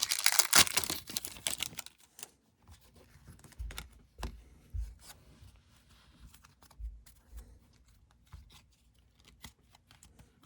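A basketball trading-card pack wrapper being torn open by hand, with crinkly tearing for about the first two seconds. After that come faint scattered clicks and a few soft low thumps.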